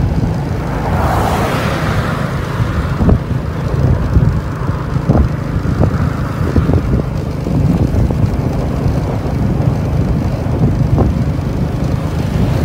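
Road noise from a moving vehicle: a steady low rumble with wind on the microphone. A hiss swells about a second in and fades again, and a few brief knocks come through.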